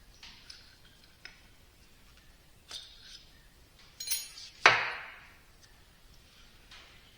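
Metal vane pump cartridge parts being handled and set down on a bench: a few light clinks, then one loud metallic clank about four and a half seconds in that rings briefly.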